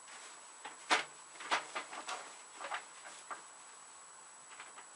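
Irregular clicks and knocks of plastic computer equipment and cables being handled and shifted on a desk, the sharpest knock about a second in and a handful more over the next two and a half seconds.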